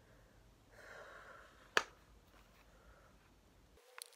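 Quiet handling of a plastic toy night light: a breathy exhale about a second in, then one sharp click, the loudest sound. Near the end come small ticks of a small screwdriver working at the light's battery cover.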